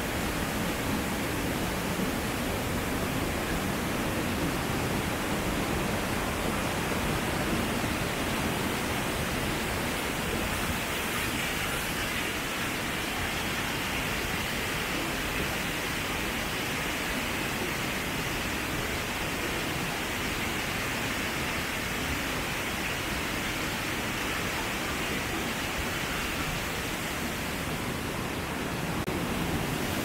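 Waterfall rushing steadily, an even noise of falling water without breaks.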